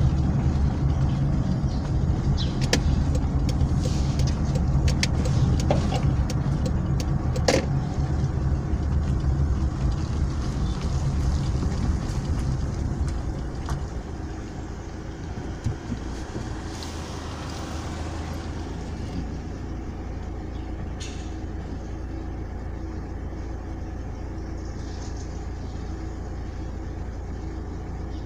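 Car engine and road noise heard from inside the car while driving, with a few sharp clicks or rattles in the first few seconds. About halfway through it slows to a stop and the engine idles steadily and more quietly.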